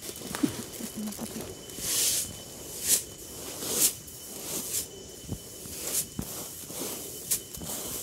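Threshed rice grain swept and scooped by hand across a woven bamboo mat, a dry rustling hiss coming in short bursts about once a second.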